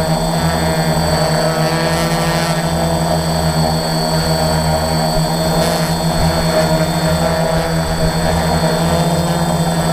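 Electric motors and propellers of a small remote-controlled aircraft running steadily in flight: a constant loud hum with a high steady whine above it.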